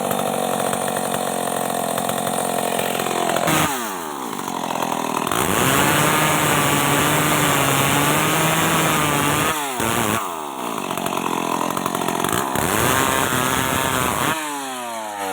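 Stihl MS 381 two-stroke chainsaw running at high revs. The throttle is eased off and opened again several times, and the engine speed falls away near the end.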